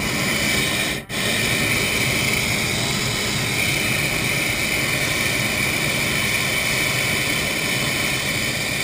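Hot air balloon's propane burner firing just overhead: a loud, steady rush that starts abruptly and cuts out for an instant about a second in before carrying on.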